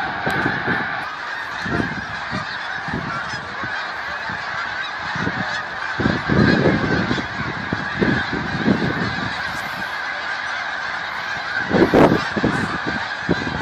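A large flock of snow geese in flight, calling all at once in a dense, continuous chorus of honks. Irregular low bursts of noise run under it, strongest about halfway through and again near the end.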